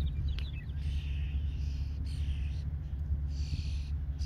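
Wind buffeting the microphone in a steady low rumble, with a bird giving short high calls about once a second and a few quick chirps near the start.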